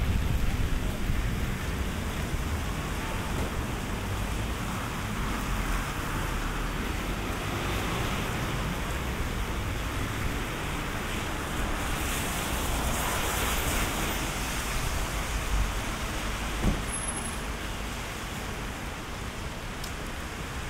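Steady wash of rain and passing traffic on wet city streets, with a low rumble underneath and a swell a little past the middle as something goes by.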